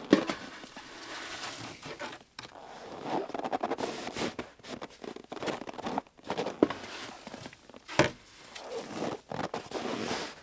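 Snow shovel scooping and scraping through packed snow in repeated strokes, with snow tipped into a metal stockpot. A few sharp knocks stand out, one at the start and the loudest about eight seconds in.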